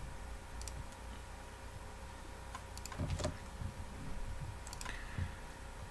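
A few faint, scattered clicks at the computer keyboard and mouse, over a low steady hum.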